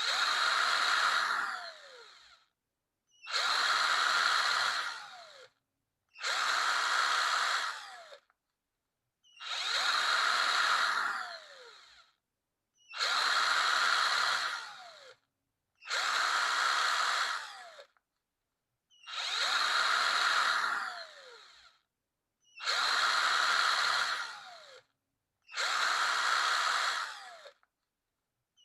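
Electric power drill run in short trigger pulls, nine times, each spin lasting a second or two. Each time the motor winds down with a falling whine before a pause of about a second.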